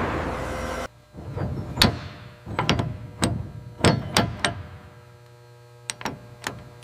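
Irregular metal knocks and clanks, about eight over four seconds, from heavy steel parts being fitted. A steady workshop machine hum cuts off about a second in, and a few faint clicks come near the end.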